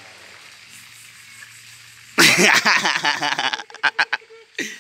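A cat's sudden loud hissing screech about two seconds in, lasting over a second, followed by a few short sharp sounds.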